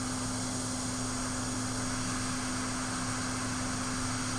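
Steady hiss of a hot-air rework station blowing on a chip to desolder it, over a steady electrical hum.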